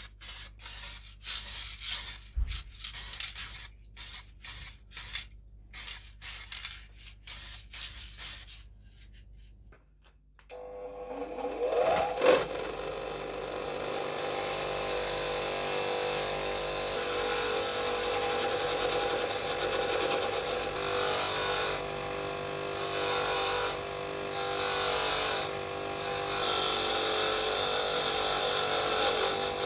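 An aerosol spray can painting a metal tin in a rapid string of short sprays. After a short lull a bench grinder switches on, its whine rising as it spins up, then runs steadily while a bolt held in locking pliers is pressed against the wheel, giving repeated hissing grinding stretches.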